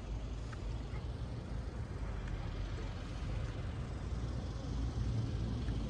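Steady low rumble of a motor vehicle running nearby, growing slightly stronger near the end.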